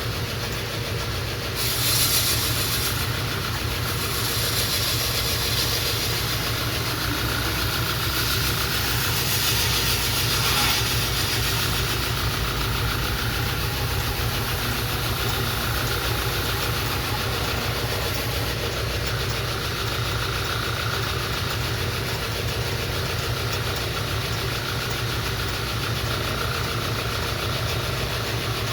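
Belt grinder running steadily, with a bill hook's edge held to a very fine finishing belt run the wrong way as a power strop, giving a high hiss that comes and goes over the steady motor hum. The hiss is strongest in the first half and fades later on.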